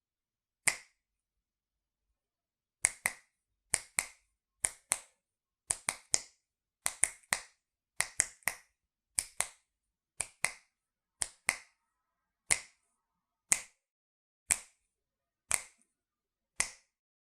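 Finger snaps, sharp and dry: one snap, a pause of about two seconds, then a run of quick doubles and triples for several seconds, then single snaps about one a second.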